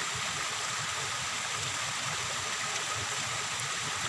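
Steady rush of running water, an even hiss with no separate splashes.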